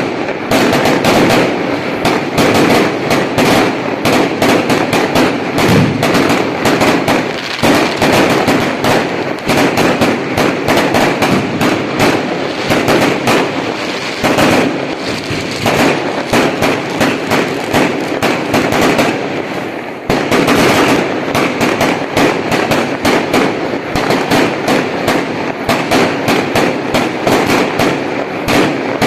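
Dense, continuous crackling and popping, many sharp cracks a second over a rushing noise, with a brief dip about twenty seconds in.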